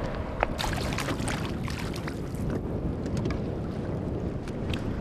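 Wind buffeting the microphone over choppy water, a steady low rumble, with a few faint, irregular clicks.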